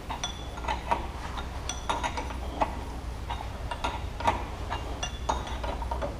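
Light metallic clicks and clinks, about two a second and irregularly spaced, as steel hydraulic hose fittings on a tractor loader are handled and turned by hand, over a low steady hum.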